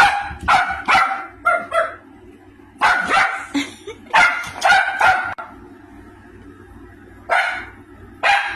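Small Maltese dog barking excitedly in bursts of several quick, sharp barks with pauses between them, set off by a strange noise in the house.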